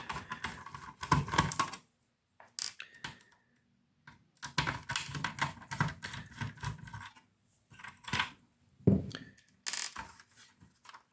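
Irregular clicks, taps and light clatter of the mixer's plastic case and loose circuit board being handled and set down on a bench. They come in several quick flurries separated by short pauses.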